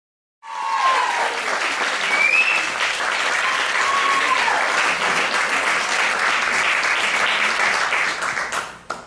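Audience applauding, with a few cheers on top. The clapping starts suddenly about half a second in and cuts off suddenly near the end.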